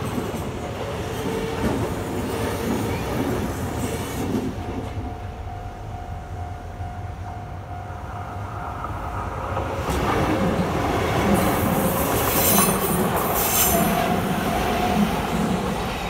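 Japanese level-crossing alarm ringing steadily while Kintetsu commuter trains pass: the tail of a 6820-series and 6200-series train rumbles by first, and about ten seconds in a second train arrives, its wheels clattering and rumbling louder over the crossing.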